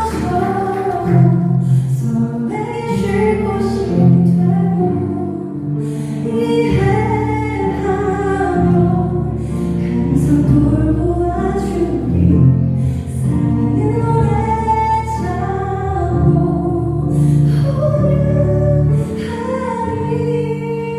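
A slow song sung by a voice over sustained instrumental accompaniment, with held, gliding sung notes.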